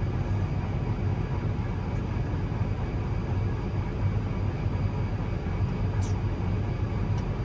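Tractor engine running steadily under load while the grain cart's unloading auger runs, augering corn into a semi trailer; an even low drone throughout.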